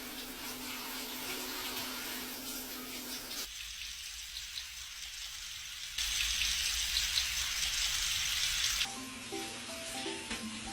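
Running water hissing and spattering in a few cut-together stretches, loudest near the middle. Background music comes in near the end.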